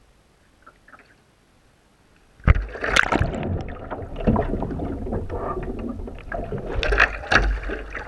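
A sea kayak capsizing with a sudden loud splash about two and a half seconds in, followed by churning, gurgling water heard through the water as the deck goes under. More splashes come near the end as the paddler sweeps and rolls the kayak back up in a butterfly roll.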